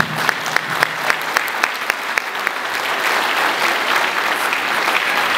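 A church congregation applauding. A few sharp claps stand out at about four a second at first, then the clapping fills in to steady, dense applause.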